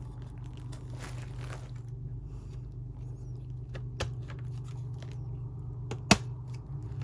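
Hands fitting a touch screen panel and its cables into a monitor frame: light handling rustles and small clicks, the loudest a sharp click about six seconds in, over a steady low hum.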